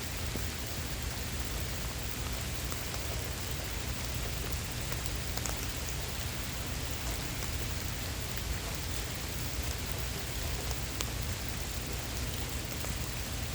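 Heavy rain falling steadily, with scattered individual drops striking close to the microphone as sharp little ticks.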